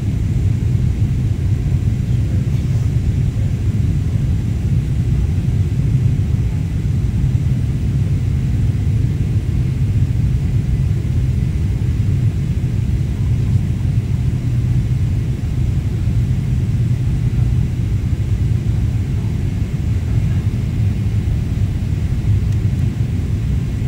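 Steady low rumble of cabin noise inside a Boeing 777-300ER descending on approach: the engines and the airflow past the fuselage, even and unbroken.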